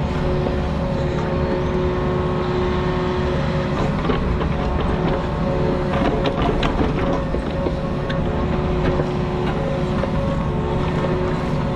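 Diesel engine of a compact construction machine running steadily, with a few sharp metallic clanks in the middle.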